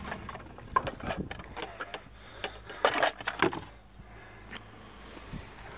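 Objects being handled among the contents of a dumpster: scattered clicks, knocks and rustles, with a cluster of sharper knocks about three seconds in, then quieter with a few light ticks.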